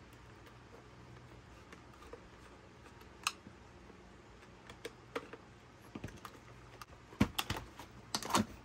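Small plastic clicks and taps from a screwdriver working on a Dyson cordless vacuum's handle and battery pack. A few scattered clicks come first, then a quick cluster near the end as the battery pack comes off.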